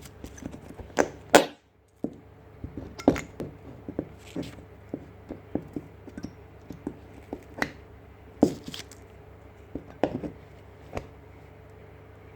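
Irregular knocks and thunks from handling and working on chair parts, the loudest about a second and a half in, over a steady low hum.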